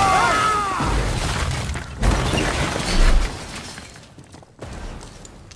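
Film crash sound effects: a dune buggy smashing into a rock cliff and breaking apart, with debris flying, a few rising and falling cries at the start, and heavy crunching impacts, the loudest about three seconds in. The crash then fades, with one more thud near the end, under film score.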